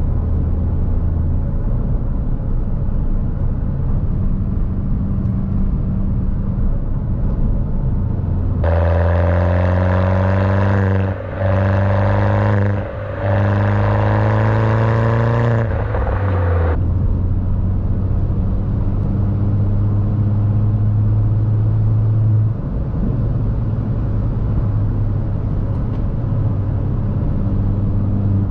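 Turbocharged 1.6-litre four-cylinder of a 2007 Mini Cooper S (R56) with a Remus exhaust and stage 2 tune, droning steadily while cruising. For about eight seconds in the middle, heard right at the tailpipes, the engine accelerates hard, rising in pitch, broken twice by short gaps about two seconds apart, typical of upshifts.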